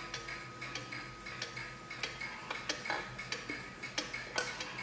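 Junghans wall clock ticking, mixed with light metallic clicks from the movement as the minute hand is pushed round by hand, about three or four clicks a second and somewhat uneven. A faint ring from the chime rods fades away in the first half.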